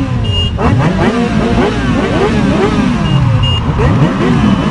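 A vehicle engine revved up and down over and over, its pitch rising and falling in quick repeated swells, like blipping the throttle during spinning or burnout stunts.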